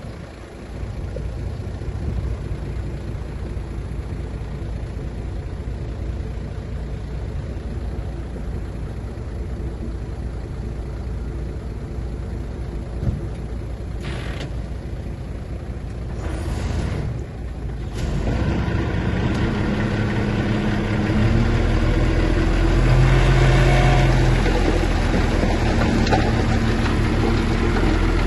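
Diesel engine of a bulldozer running with a steady low rumble. It grows louder about two-thirds of the way in and shifts in pitch as the engine works harder.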